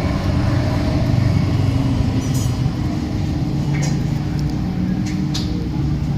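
A motor vehicle engine running steadily, with a few short, light clicks about two and a half, four and five and a half seconds in.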